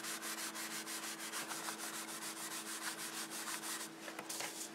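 Paper towel rubbed quickly back and forth over a vinyl chalkboard label, about five soft strokes a second, stopping near the end. The label is being dried after its chalk ink was wiped off, ready to be written on again.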